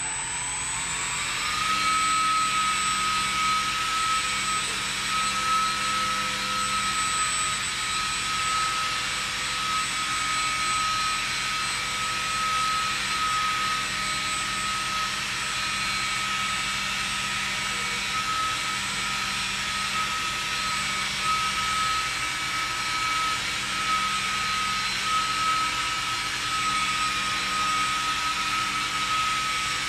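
Small model airplane's motor and propeller spinning up to a high whine in the first second or so, then holding a steady whine that wavers slightly in pitch as the plane hovers nose-up.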